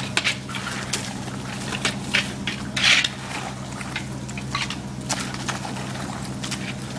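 Liquid splashing and pouring in irregular bursts, the loudest about three seconds in, over a steady low machine hum.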